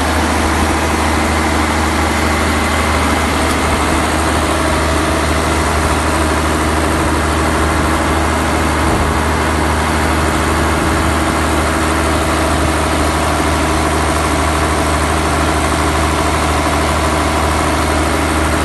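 Large diesel generator set running steadily at constant speed, an unchanging heavy engine drone.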